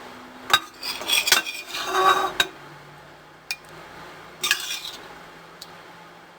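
Utensils clinking and scraping against dishes: a burst of clatter in the first couple of seconds, a single tick, then another short clatter and a last faint tick near the end.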